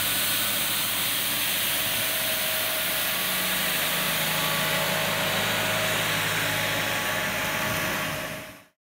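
Valtra N142D tractor engine running steadily while its front-mounted rotary broom spins against the asphalt, brushing grit with a continuous hiss; the sound fades out near the end.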